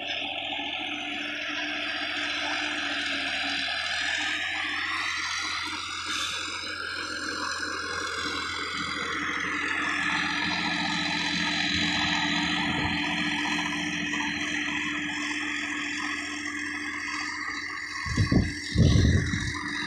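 Sonalika DI-50 RX tractor running steadily under load, pulling a rotavator through dry soil, with a whirring whose pitch drifts slightly. Near the end there are a few loud, low rumbling bursts.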